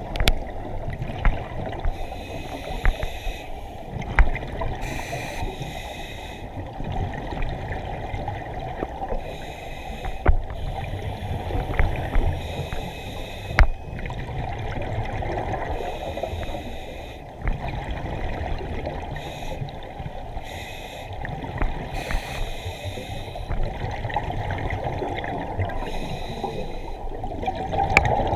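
Scuba breathing heard underwater through a camera housing: muffled bubbling and rushing of exhaled air from the divers' regulators, swelling and easing with each breath, with scattered small clicks.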